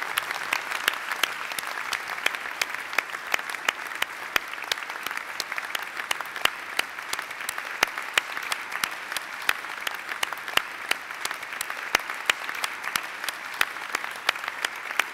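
A crowd applauding steadily: many hands clapping together in a dense patter, with single sharp claps standing out.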